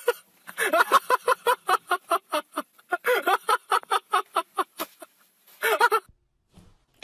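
A cat giving a rapid run of short, repeated calls, about five a second, then a brief final burst near the end.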